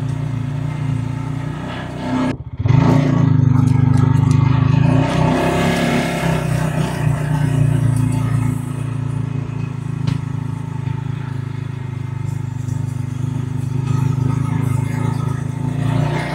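TYM diesel tractor engine running steadily, with a brief dip about two seconds in before it comes back louder.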